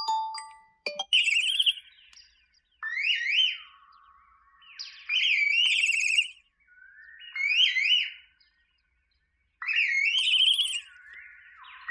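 A Google Pixel 7a ringtone: electronic tones in quick rising pitch sweeps that step back down, the phrase repeating about every two to two and a half seconds. In the first second the last chime-like notes of the previous ringtone die away.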